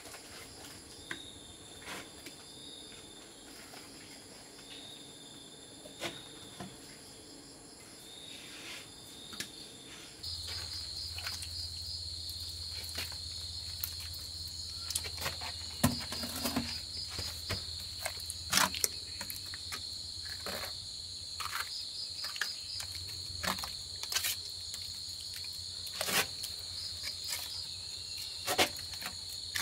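Crickets chirping in short repeated calls, changing about ten seconds in to a louder steady insect trill with a low hum. Scattered knocks and scrapes come from cement work on a concrete tank floor: a bucket handled, then wet cement spread by hand.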